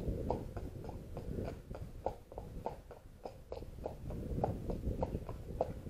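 A horse's hooves clip-clopping on a tarmac road at a walk, an even run of about three sharp knocks a second, over a low rumble.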